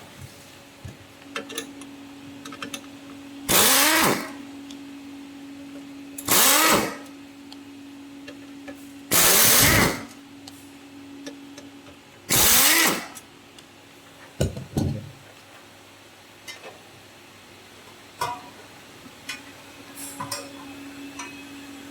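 A small electric motor runs in four short bursts about three seconds apart, falling in pitch as it winds down after each one, over a steady low hum. Light clicks and knocks follow in the second half.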